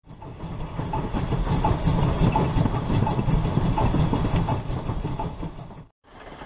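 Recording of a full-size steam train rolling by: cars clattering over rail joints with a deep rumble and steam hiss. It cuts off suddenly near the end and a quieter train sound takes over.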